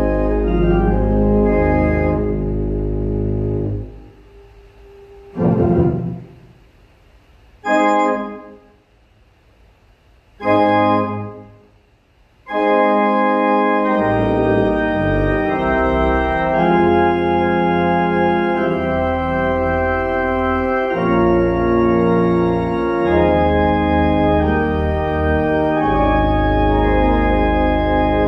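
Organ music: full held chords over a deep bass, broken about four seconds in by three short, separate chords a couple of seconds apart, then long sustained chords with the deep bass again from about twelve seconds in.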